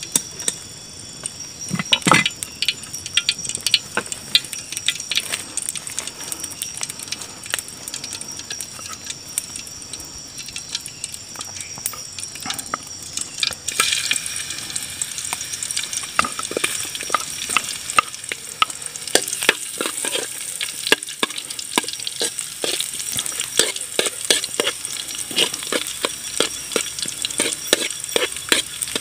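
Oil sizzling in a metal wok over a wood fire, getting louder and brighter about halfway through as sliced garlic and shallots go in. A metal ladle scrapes and clinks against the wok as they are stirred, in quick repeated clicks.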